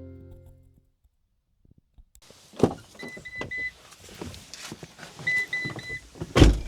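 Music fading out, then clicks and handling knocks with two quick runs of short electronic beeps, and one loud thump near the end.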